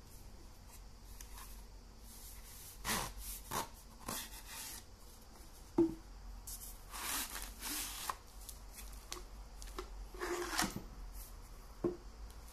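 Hands opening a baton's black box and handling the nylon holster inside: a few bursts of rubbing and scraping as the lid slides off and the pouch is pulled out, with two sharp knocks, one about six seconds in and one near the end, as the box parts are set down.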